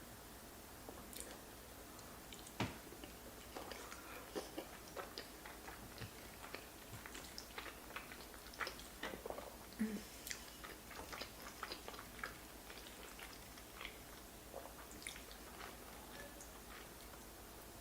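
Close-up eating sounds: a person chewing creamy fettuccine Alfredo with king crab, with wet smacking and scattered small clicks.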